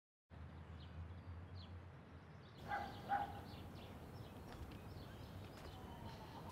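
Quiet outdoor park ambience that starts after a moment of silence, with scattered faint bird chirps. Two short animal calls about three seconds in are the loudest sounds.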